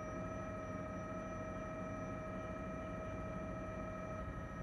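Helicopter cabin noise: a steady low rumble with a constant high whine on top.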